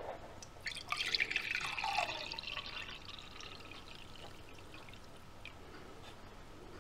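Water poured from a plastic food container into a ceramic mug: a splashing pour lasting about two seconds, then trailing off to a faint trickle and drips.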